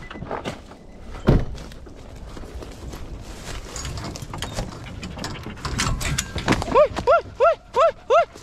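A heavy thump about a second in, then knocking and rustling around a truck-bed dog box of hunting hounds. Near the end one hound starts barking steadily, about three barks a second, each bark rising and falling in pitch, as the dogs wait to be turned loose.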